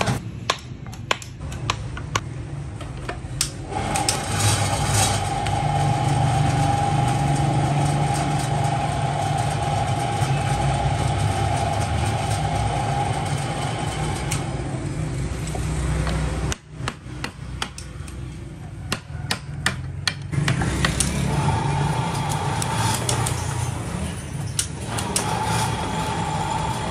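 Workshop machinery running with a steady whine over a low hum, stopping for a few seconds in the middle and starting again, with scattered sharp knocks and hammer-like strikes throughout.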